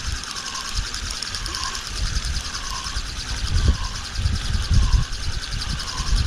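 Kaida spinning reel being cranked steadily, its gears whirring in a cycle that repeats about once a second, as a bottom rig is wound in with some load on the line. Gusty wind buffets the microphone.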